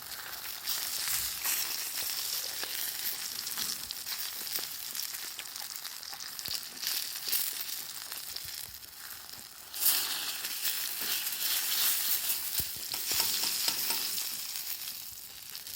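Meat sizzling as it cooks over a campfire: a steady crackling hiss that swells about ten seconds in.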